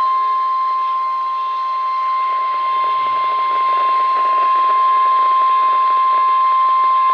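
NOAA Weather Radio's 1050 Hz warning alarm tone: one loud, steady tone held over radio hiss, the signal that a warning, here a severe thunderstorm warning, is about to be read.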